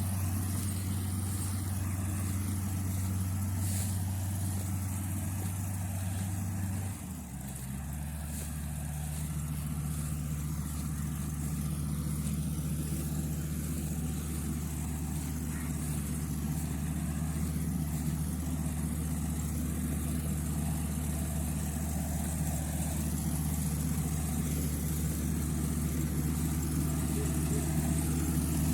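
Kubota rice combine harvester's diesel engine running steadily. About seven seconds in, its note drops lower and then holds steady.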